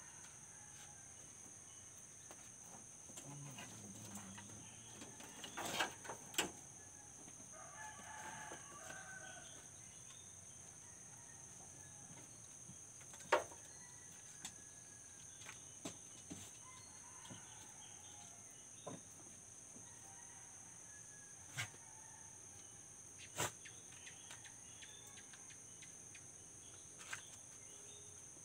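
A rooster crowing faintly, over a steady high-pitched insect trill. Several sharp knocks and clicks from pots and utensils being handled at the cooking fire.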